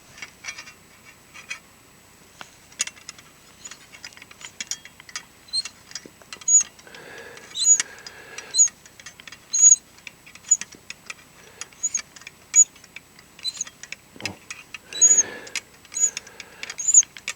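Snap-ring expander tool clicking and tapping on a turbocharger compressor housing's large steel snap ring: irregular sharp metallic ticks, each with a short high ring. They come sparsely at first, then faster and louder from about six seconds in, with a couple of longer scraping bursts.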